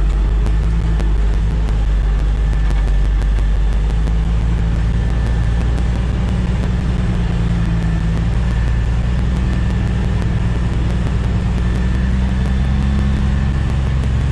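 Truck engine running steadily under load, with a faint steady high squeal from the engine's cooling fan, which kicks in when the engine runs a little too hot.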